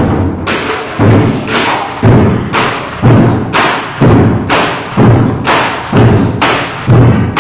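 A Vietnamese festival drum ensemble: several large wooden barrel drums with hide heads, struck with sticks in a steady beat of about two heavy strokes a second. Each stroke has a deep ring that dies away before the next.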